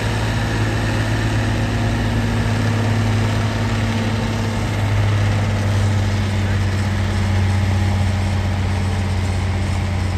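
John Deere 4320 tractor's turbocharged six-cylinder diesel engine running at a steady, deep, even note.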